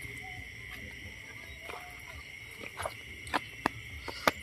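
Night insect chorus of crickets, a steady high trill, with a few short low animal calls in the first two seconds. Several sharp snaps and cracks come in the second half, the loudest near the end, as brush and sticks are pushed through close by.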